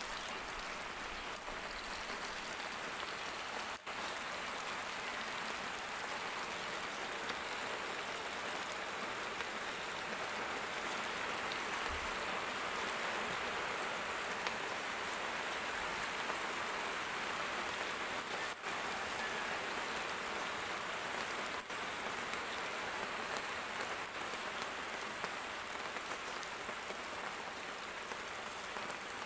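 Cuttlefish frying in hot oil, a steady sizzle with no let-up.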